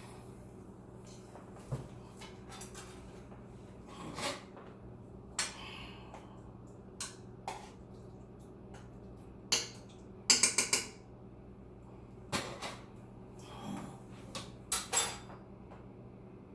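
Kitchen cookware and utensils clattering: scattered clinks and knocks, with a short rattle of several quick clicks about ten seconds in, over a steady low hum.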